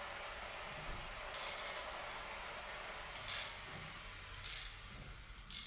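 Hand ratchet wrench clicking in four short strokes, roughly a second apart, as a torch-heated, formerly seized bolt is backed out of an aluminium cylinder head. It is turning out easily. A faint steady hiss runs underneath.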